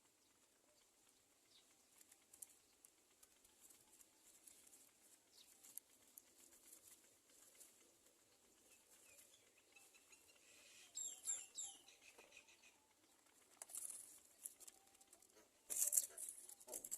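Faint rustling and scratching of a myna chick moving in its nest, with a few short high squeaks about eleven seconds in and louder bursts of rustling near the end.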